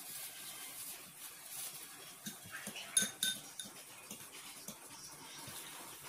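Kitchenware clinking twice in quick succession about three seconds in: a utensil striking a metal tray or bowl, with a short ringing tone. Underneath is a soft, steady rustle of breadcrumbs as kibbeh balls are rolled by gloved hands.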